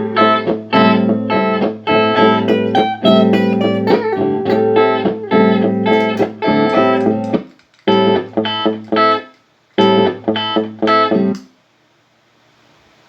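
Guitar played through a Boss RC-1 loop pedal: a rhythmic picked phrase over a steady low note. It breaks off, comes back twice in short phrases, then stops suddenly, leaving faint hiss.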